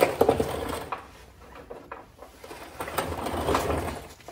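A mechanic's creeper rolling on a concrete floor in two short stretches, about a second each, with a few light metal clicks.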